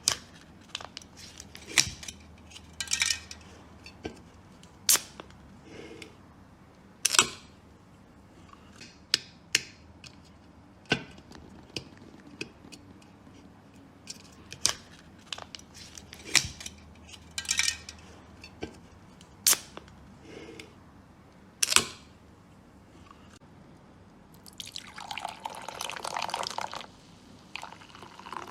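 A series of sharp, irregularly spaced clicks or taps, then a steady rushing noise that starts a few seconds before the end.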